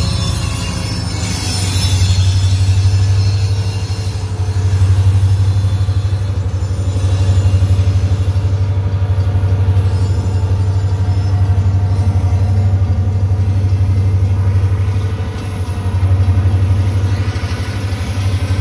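Diesel-electric freight locomotive's engine running under power as the train pulls through, a loud, steady low rumble.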